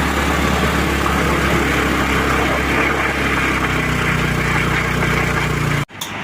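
Honda Activa scooter's single-cylinder engine held at high revs for a burnout, running steadily with a hiss over it as the worn rear tyre spins. The sound cuts off suddenly near the end.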